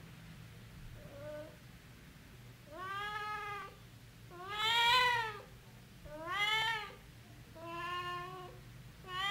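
A domestic cat meowing over and over, one drawn-out meow about every second and a half, the loudest midway, with a faint steady low hum underneath.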